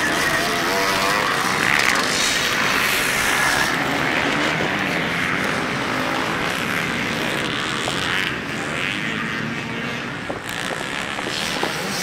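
Several motocross bikes' engines revving, rising and falling in pitch as they ride the track; a little quieter in the last few seconds.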